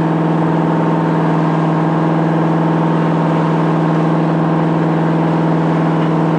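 The trawler's Detroit Diesel engine running steadily underway, a constant drone with a strong low hum that does not change in pitch or level.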